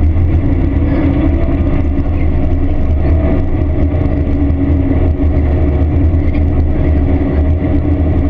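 John Deere combine running at work: a steady engine and machinery drone with a strong low hum and a few steady tones.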